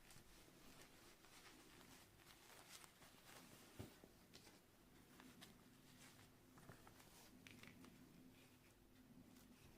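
Near silence: faint room tone with a low hum and a few soft scattered ticks, the clearest a little under four seconds in.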